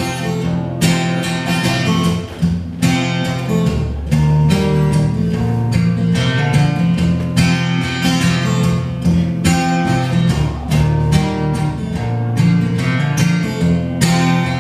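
Solo acoustic guitar strummed steadily, an instrumental break with no singing, in a country-folk song.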